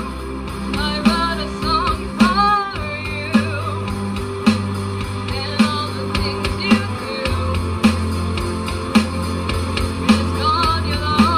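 A live rock band playing electric guitars, bass and drum kit with singing, a drum accent landing about once a second over held bass notes.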